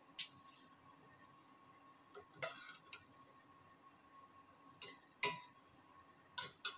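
Uncooked rice being added to a stainless steel pot of simmering peas: a brief rush as the rice goes in about two and a half seconds in, and several sharp metal clinks of a utensil against the pot, the loudest about five seconds in with a short ring.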